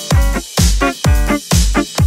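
Music with a steady dance beat: a bass drum about twice a second under sustained chords.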